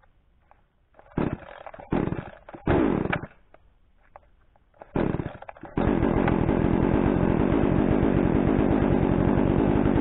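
Gas chainsaw being pull-started: several quick pulls on the starter cord, each giving a short sputter, then the engine catches about six seconds in and keeps running steadily.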